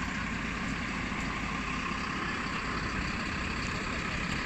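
Mercedes-Benz Atego fire engine's diesel engine idling steadily.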